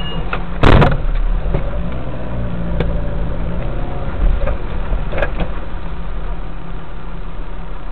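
A car's engine and road noise make a steady low rumble. A loud sudden thump comes about a second in, and a few lighter knocks follow later.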